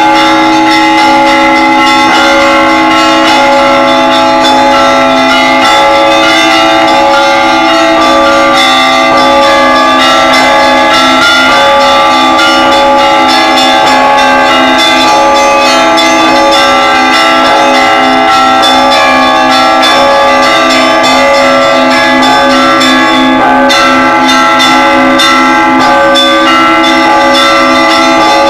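Russian Orthodox church bells rung by a single bell ringer: many bells sounding together in a continuous, loud peal, quick repeated strikes of the smaller bells over the long ringing tones of the larger ones.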